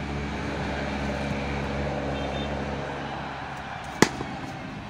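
A steady low hum of several held tones fades out about three seconds in. Then a cricket bat strikes the ball once with a single sharp crack about four seconds in.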